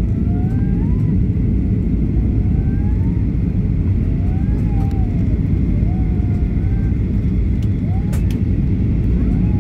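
Cabin noise inside a Boeing 737-800 on its landing approach: a steady, loud rumble of the engines and rushing air, with a faint steady high whine above it.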